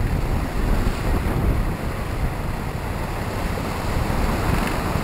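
Steady wind noise on the microphone over the rush of waves and water along the hull of an Express 37 racing sailboat sailing fast under spinnaker.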